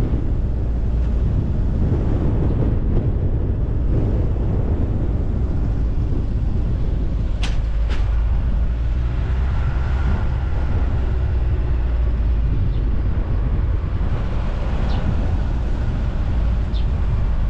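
Car driving slowly, a steady low rumble of engine and tyres on the road, with two sharp clicks about halfway through.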